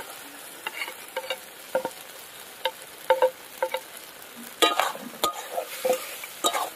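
Raw crab pieces sizzling as they go into hot fried masala in a metal kadai, stirred and scraped with a wooden spatula. Irregular short knocks and scrapes over a steady sizzle, busiest in the second half.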